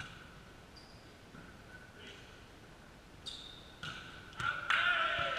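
Volleyball rally: a sharp hit of the ball right at the start, then a quick run of hits about three seconds in, followed by loud shouts from the players near the end.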